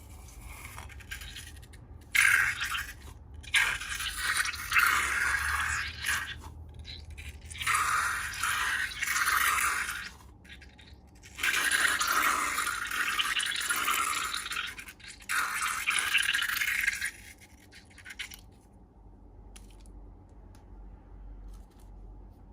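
Slime being worked and scraped, a scratchy, crackly sound in several bursts of one to four seconds each, dying down near the end.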